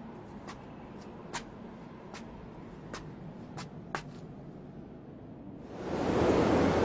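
Quiet aftermath of an explosion in an anime soundtrack: a low hiss with scattered small clicks of pebbles and debris falling, then a rushing noise swelling up near the end.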